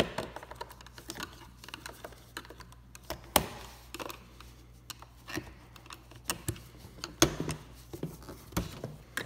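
Flathead screwdriver prying at a clipped-in plastic interior door handle of a Honda Accord: scattered small plastic clicks and scraping, with two sharper clicks about three and a half and seven seconds in.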